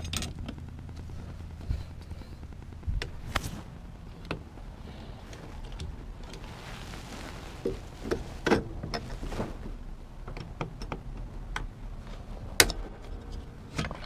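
Scattered clicks, taps and knocks of hand-work on a car's steering column as parts are pried and pulled free, mixed with the rubbing and bumping of the camera being moved about; the sharpest knock comes near the end.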